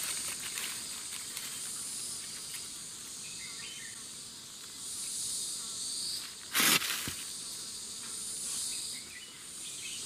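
A chorus of insects buzzing high and steady, swelling and fading in waves a few seconds apart. A sharp noise lasting a moment stands out about two-thirds of the way through.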